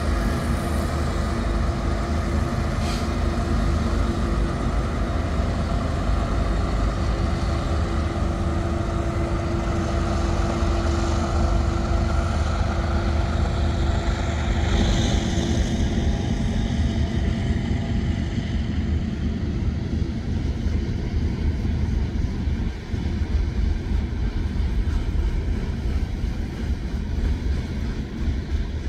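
Diesel-electric locomotives of a BNSF freight train working hard as they climb slowly upgrade, a steady heavy engine drone with a held hum that fades out about halfway through.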